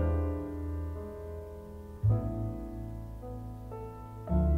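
Background music: sustained chords over deep bass notes, changing to a new chord about every two seconds.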